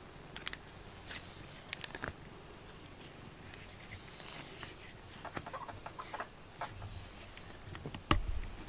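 Scattered soft scratches and clicks as a cat is brushed with a rubber grooming brush, with one louder thump about eight seconds in.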